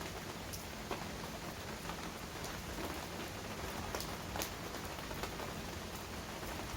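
Heavy rain falling steadily, a dense even hiss with scattered sharper drop ticks and splashes standing out.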